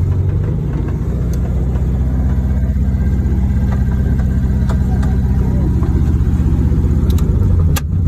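The engine of a 1971 VW Beetle, an air-cooled flat-four, running steadily at low speed, heard from inside the cabin, with a sharp click near the end.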